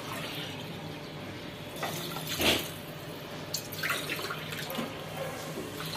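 Water poured from a steel tumbler into a pressure cooker of rice and masala, a steady pouring trickle with a louder swell about two and a half seconds in. Water is being added to the rice before pressure cooking.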